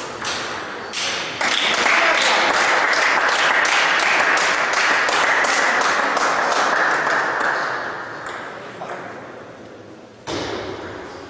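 Table tennis ball clicks of a rally at the start, then a loud burst of spectator clapping and cheering once the point is won, lasting several seconds and fading about eight seconds in. A single knock comes near the end.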